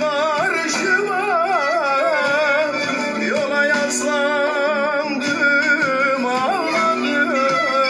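A Turkish folk song (türkü) playing: a singer holding long, wavering, ornamented notes over a steady instrumental backing.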